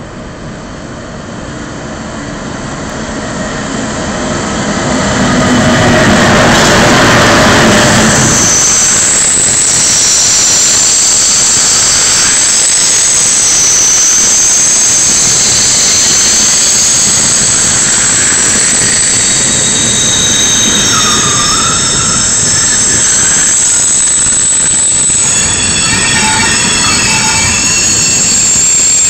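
High-speed train pulling into a platform: its rumble grows louder over the first six seconds as it comes in, then it squeals on several high, wavering tones as it brakes to a stop.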